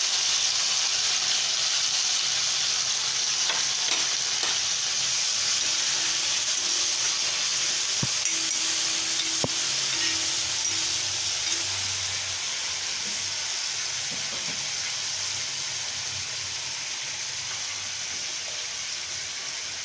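Tomato frying in hot oil in a pan: a steady sizzling hiss that slowly dies down in the second half, with a couple of light clicks near the middle.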